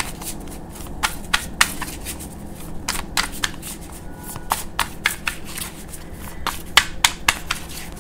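A deck of tarot cards being shuffled by hand: crisp, irregular clicks and slaps as the cards flick against each other, several a second.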